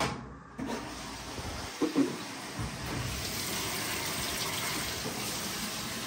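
Fisher & Paykel Intuitive Eco (IWL16) top-load washer filling with water at the start of a cycle: a steady rush of water coming in, with two knocks about two seconds in.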